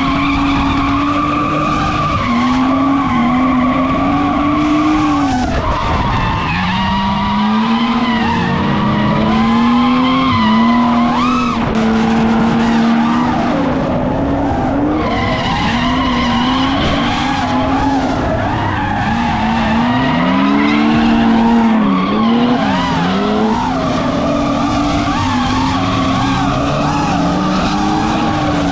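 BMW E36 3 Series drifting: its engine revs repeatedly rise and fall at high rpm over the continuous skid of the rear tyres.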